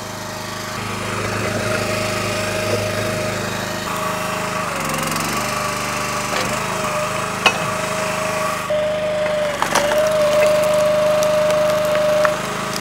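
Split-Fire 3490 two-way hydraulic log splitter running on its fuel engine with a steady whine, while firewood rounds crack and splinter as they are split. Several sharp cracks come in the second half.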